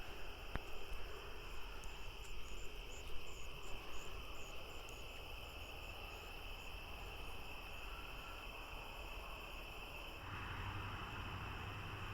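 Steady outdoor chorus of crickets or similar night insects trilling, with a fainter pulsed chirping above it for the first few seconds. A low steady hum joins about ten seconds in.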